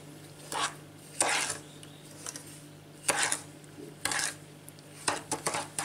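Metal spoon stirring sugar and coconut flakes in a small saucepan, scraping against the pan in short strokes about once a second.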